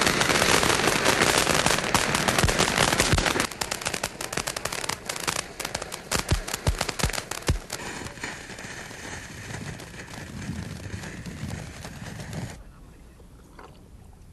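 Fireworks going off in a dense, rapid volley of cracks, thinning after about three seconds to scattered loud bangs. A hissing crackle follows and fades, dropping away near the end.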